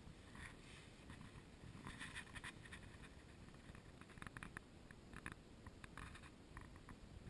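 Near silence: faint scattered rustles and light ticks of grass and dry straw brushing the camera as it moves low through weeds, over a low muffled rumble. The rustles cluster about two seconds in and again about four to five seconds in.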